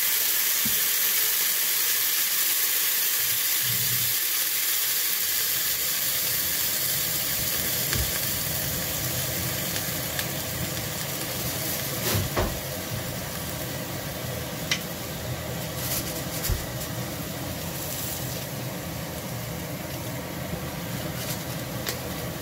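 A fish fillet frying in a pan of hot oil with a splash of water, sizzling and hissing as the water boils off into steam. The sizzle is loud at first and slowly dies down, with a few small clicks along the way.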